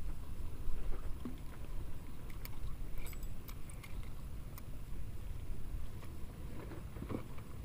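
Water lapping against a small boat's hull, with wind rumbling on the microphone. A few sharp clicks are heard in the first half.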